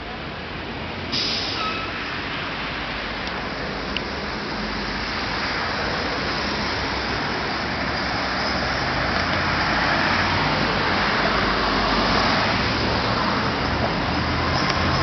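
Road traffic on a city street: engines and tyre noise of passing cars, minibuses and a coach, slowly growing louder. A brief sharp burst stands out about a second in.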